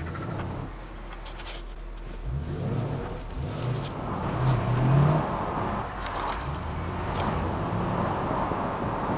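Car engine pulling up through the revs, rising in pitch twice and loudest about five seconds in, then cruising. Wind rushes past the open cabin of a convertible with its top down.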